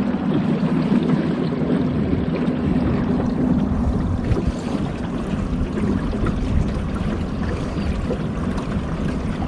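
Boat motor running under way, with water rushing along the hull; a steady low hum is strongest for the first three seconds, then weakens.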